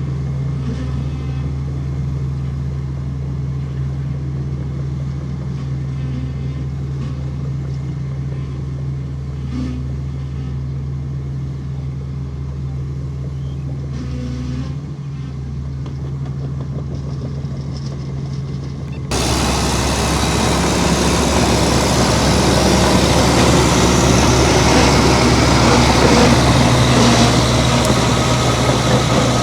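Heavy diesel engine running steadily with a low, even drone. About two-thirds of the way through, the sound switches abruptly to a louder, rougher engine noise.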